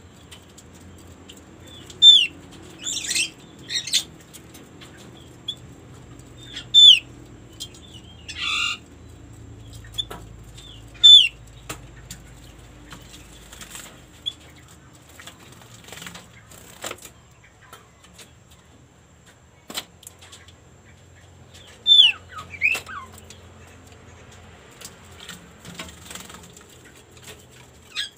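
Female opior (Javan grey-throated white-eye) calling: short, sharp high notes that drop in pitch, given singly or in quick pairs every few seconds, with a couple of noisier rasping bursts between. The call is one used to lure male opiors into calling.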